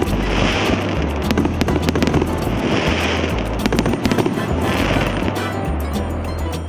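Consumer fireworks battery of 1.5-inch shells firing, a rapid run of bangs from the bursting shots, over background music with a stepping bass line.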